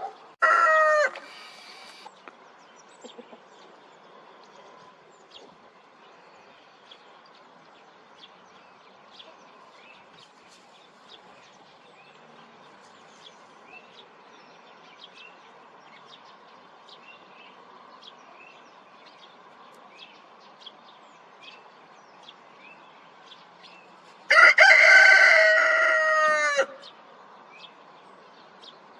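A rooster crowing: a brief crow in the first two seconds, then a full, loud crow near the end whose pitch falls away as it finishes. Faint high chirps of small birds sound in between.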